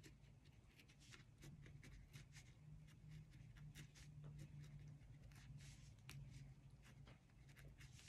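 Felt-tip Sharpie marker drawing short curved strokes on paper: a faint, irregular run of quick scratches, several a second.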